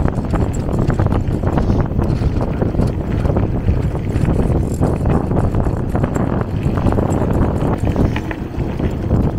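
Wind buffeting the microphone while riding a bike over a rough off-road track, with a steady low rumble and many quick irregular rattles and knocks from the bumps.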